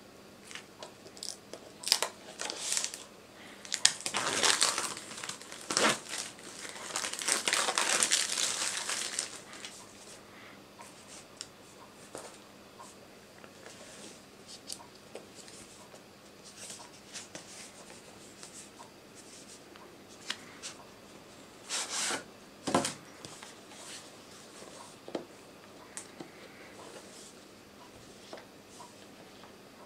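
Plastic shrink-wrap film being torn and crumpled off a Samsung Galaxy Note8 retail box, crinkling densely in the first third. Then quieter handling of the cardboard box with small taps and a short rustling scrape about three quarters through.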